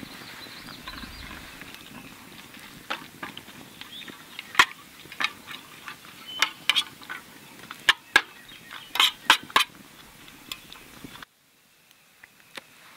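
Chicken being stirred in a 120-year-old National skillet over a campfire: sharp clicks and clinks of the utensil against the metal pan over a low hiss of sizzling and fire. The sound cuts out suddenly near the end.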